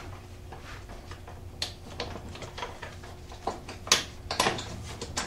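Small metallic clicks and taps of a bolt and spacer being worked through a steel ATV foot peg bracket by hand, with a couple of sharper knocks about four seconds in.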